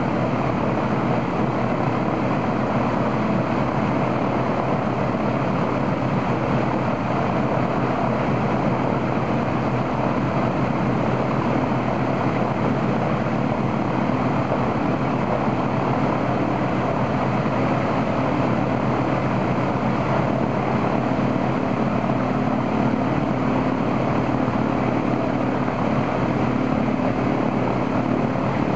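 Ilyushin Il-14's right engine, a Shvetsov ASh-82T radial, running steadily in a ground run-up with its propeller turning. The run is a check after the oil cooler was replaced.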